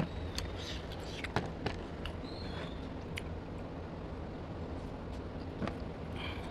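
Close-miked eating sounds: fingers mixing rice and mutton curry on a plate, chewing, with several sharp mouth clicks and smacks over a steady low background hum.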